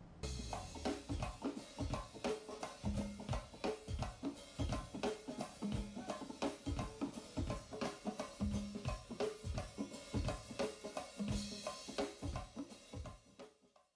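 Drum-led music: a busy, fast percussion groove of kick, snare and other drums that fades out near the end.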